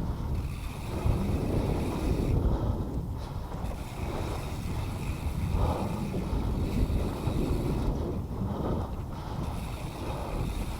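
Wind rushing over an action camera's microphone and mountain bike tyres rolling over a dirt trail at speed, with the rider's heavy breathing coming through every couple of seconds.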